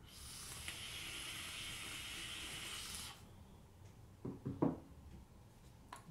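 Vape atomizer coil hissing steadily for about three seconds during a long draw, as it vaporizes thick high-VG e-liquid, then cutting off suddenly. About a second later, a few short breathy puffs as the vapor cloud is blown out.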